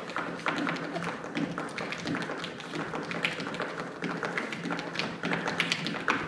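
Irish step dancer's hard shoes beating fast, dense rhythms of taps and stamps on a wooden stage floor.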